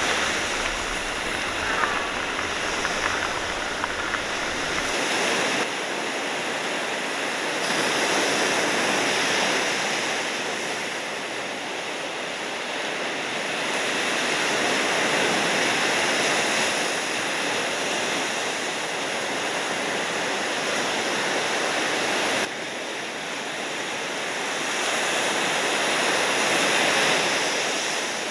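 Ocean surf rushing in a steady wash of noise, its character changing abruptly several times.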